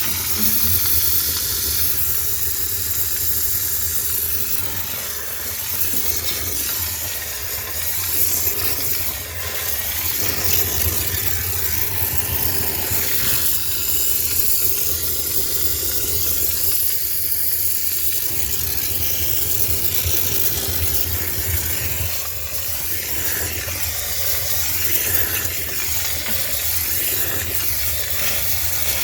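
High-pressure steam cleaner jetting steam, a continuous hiss that swells and eases, over a steady low hum.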